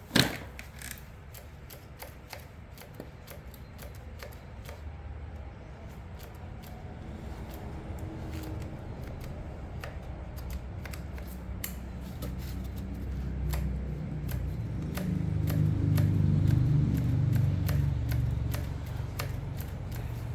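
Hands working on a string trimmer's parts: one sharp click just after the start, then scattered small clicks and knocks, with a low rumble of handling that grows louder in the second half.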